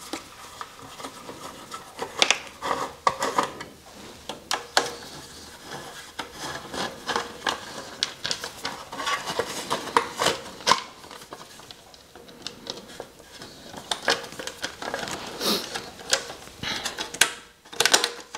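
Exhaust mounting parts being handled and fitted by hand: irregular metal clinks, taps and rubbing.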